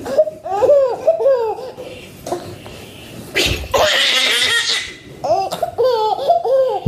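A baby laughing in two bouts of short, arching laughs, one at the start and one in the second half. A loud breathy burst of noise comes about halfway through.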